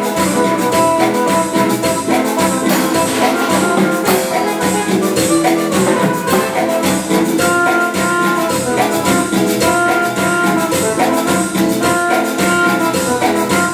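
Cumbia band playing an instrumental passage: a keyboard melody over electric bass and a steady, busy percussion beat.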